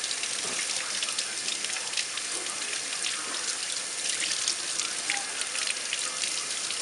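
Water running from a sink faucet and splashing off a wet puppy into the sink: a steady hiss with many small splashes and drips.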